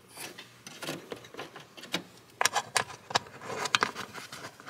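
Hands handling car parts: scattered small sharp clicks and light rattles, most of them bunched in the second half.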